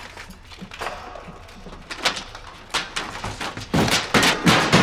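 A run of knocks and clatter from hurried hands-on repair work, scattered at first, then coming thick and loud in the last second or so.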